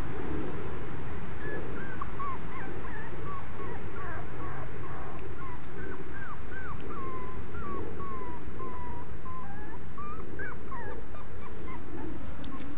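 Young puppies whimpering and whining in a long run of short, high cries that bend up and fall in pitch, over a steady low background rumble.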